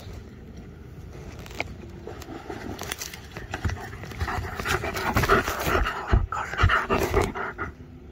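German shepherd dog panting, growing louder from about halfway through as the dog comes in close, with a few low thumps.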